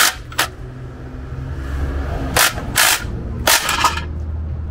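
Five short, sharp bangs: two about two and a half and three seconds in, then three in quick succession near the end, over a steady low hum.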